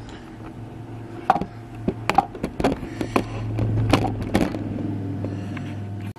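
Irregular clicks and knocks of shirts and press parts being handled at a manual screen-printing press, over a steady low hum that cuts off abruptly near the end.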